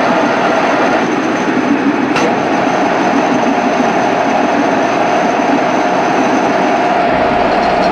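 Heavy milling machine running steadily while its spindle drives a 10 mm HSS twist drill deep into a metal block at 350 rpm and 120 mm/min feed, a continuous loud grinding machine and cutting noise with a faint high whine. A single sharp click about two seconds in.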